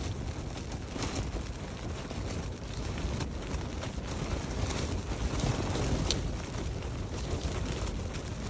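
Steady rushing wind buffeting the microphone, a constant low rumble with hiss above it and a few faint ticks.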